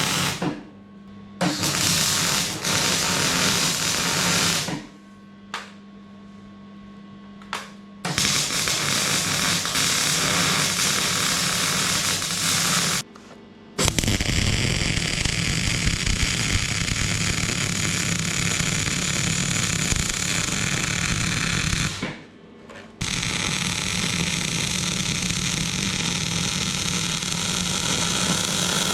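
Electric arc welding: the arc crackles and hisses in runs of several seconds, stopping briefly between welds, with the welder's steady hum in the pauses.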